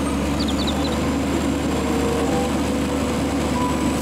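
Front-loader garbage truck's engine running steadily with a low hum as its hydraulic front forks lift a dumpster.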